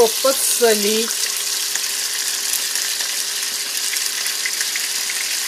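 Beef ribs searing in hot oil in a pot, a steady sizzling hiss of frying meat.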